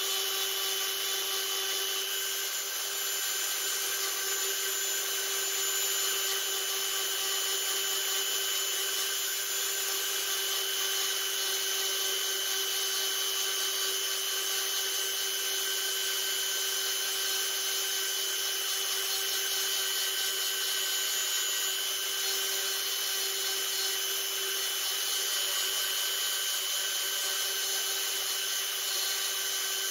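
Small handheld rotary tool (Dremel-type) running at a steady speed, its fine bit sanding along the carved edges of a wooden board. A constant high motor whine mixed with grinding hiss.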